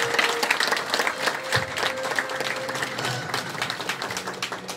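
Audience applauding, many people clapping at once, dying down near the end, with background music underneath.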